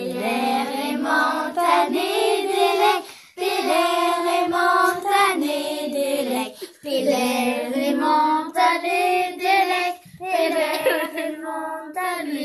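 A group of children singing together in Breton, in four phrases with brief breaks between them.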